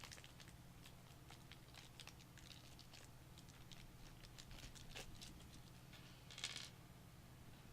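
Near silence with a faint low hum, broken by scattered light clicks and taps of small parts and screws being handled inside a small PC case, and a brief scrape about six and a half seconds in.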